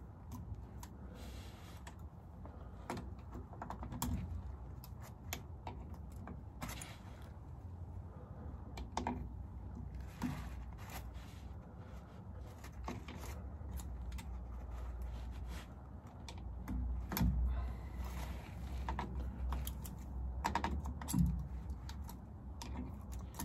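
Pliers working old locking wire out of the bolts of a Daimler Ferret's epicyclic wheel hub: irregular small metallic clicks and scrapes, a few louder ones near the end.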